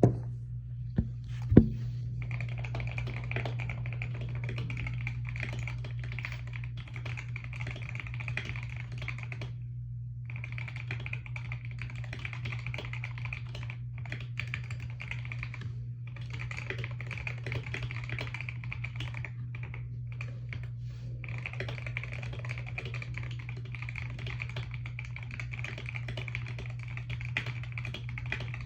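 Typing on a keyboard fitted with stock, unmodded Wooting Lekker V2 linear switches: fast runs of keystrokes broken by short pauses, over a steady low hum. A couple of sharp thumps come in the first two seconds, before the typing begins.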